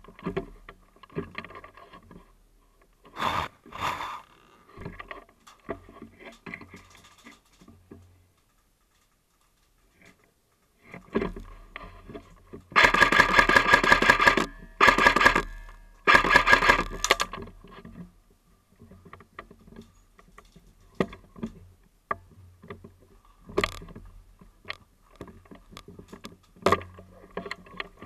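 An airsoft gun firing three rapid full-auto bursts about halfway through. Scattered clicks and handling knocks come before and after.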